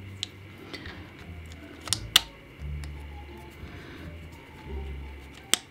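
A few sharp small clicks and scrapes as a carbon-brush cap is turned by hand into the motor housing of a Statler Stitcher Optimum longarm quilting machine. The loudest clicks come near two seconds in and just before the end. Faint background music with a plucked bass line plays underneath.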